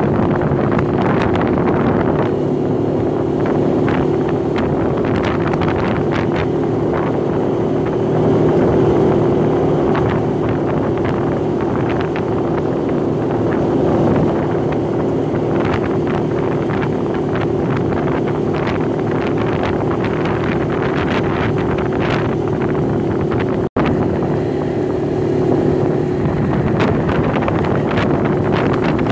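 ATV engine running steadily while riding, with wind buffeting the microphone. The sound cuts out for an instant late on.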